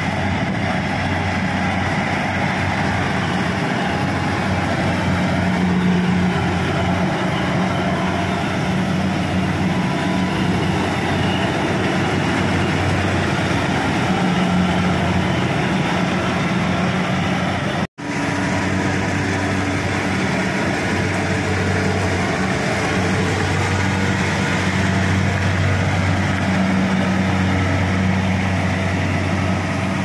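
Kubota DC-70 Plus rice combine harvester running while it cuts and threshes, its diesel engine and threshing works making a steady, loud drone with a low hum.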